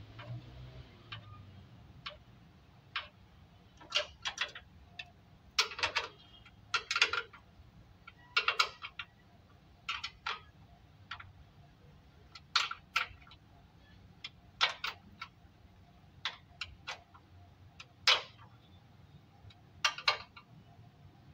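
Sharp metallic clicks and taps, singly and in short clusters at an uneven pace, from a ring spanner working the bolts of a steel radiator support panel.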